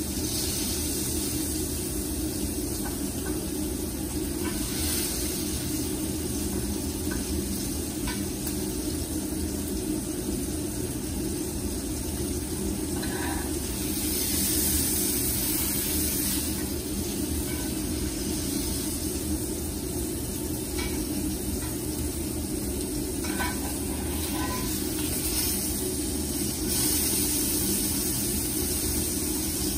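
Steak searing in a cast-iron skillet: a steady sizzle over a low rumble, with metal tongs clicking against the pan. The sizzle swells louder as the steak is lifted and moved, about halfway through and again near the end.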